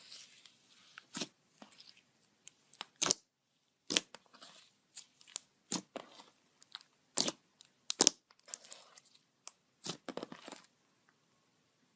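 Glitter slime being squeezed and pressed by hand, making a string of irregular sharp pops and crackles as trapped air bursts, then stopping about a second before the end.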